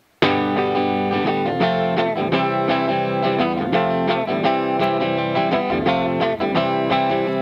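Background music led by guitar, with plucked notes, cutting in suddenly at the very start.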